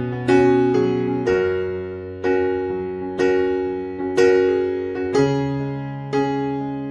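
Background music: gentle electric piano chords struck about once a second, each fading before the next.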